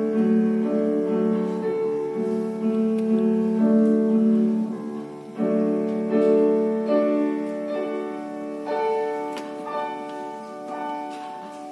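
Solo grand piano played slowly, sustained chords under a melody line, growing softer toward the end.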